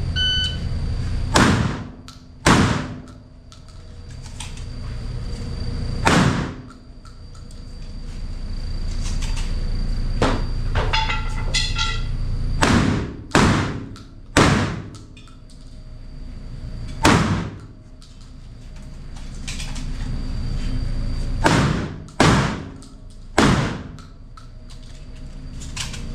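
AR-15 rifle in 5.56 firing about ten single shots in an indoor range. The shots are spaced irregularly, some in quick pairs, and each has a short echoing tail.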